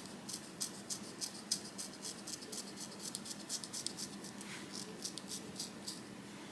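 Dermaplaning razor scraping over facial skin in short strokes: a faint, dry scratching, about three or four strokes a second, thinning out near the end.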